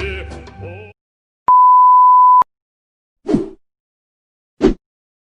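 A music clip cuts off within the first second. Then a steady, high censor bleep sounds for about a second, the loudest thing here. Two brief sound effects follow about a second and a half apart, the first falling in pitch.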